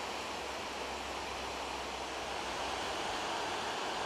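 Steady rushing of a river, an even wash of noise with no change in level.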